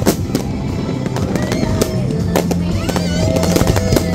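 Fireworks bursting and crackling in quick succession, over music with a steady bass line.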